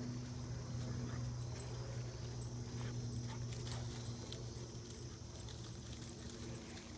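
Dogs' paws scuffling and crunching through dry fallen leaves as two dogs chase each other, heard as scattered light ticks over a steady low hum.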